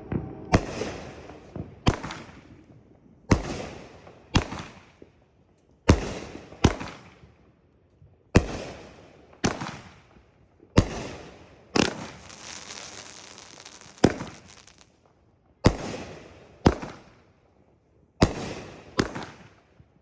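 A 23-shot 500 g consumer firework cake firing in sequence: about fifteen sharp booms of shells bursting, roughly one every second or so, each trailing off in an echo, with a burst of crackling about twelve seconds in.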